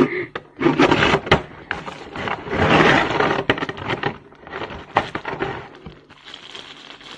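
A clear hard-plastic packaging box being handled and opened: sharp plastic clicks and knocks, and scraping against the table. Near the end, plastic wrapping rustles as a wrapped part is pulled out.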